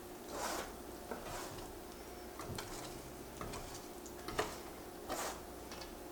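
Pancake preparation: a kitchen utensil scraping and clinking against a bowl or pan in short strokes, with a few light clicks in between.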